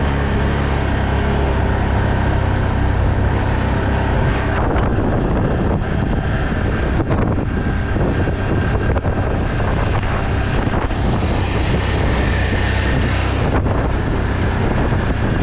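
ATV engine running steadily under load as it drives through a wet field, with wind buffeting the microphone.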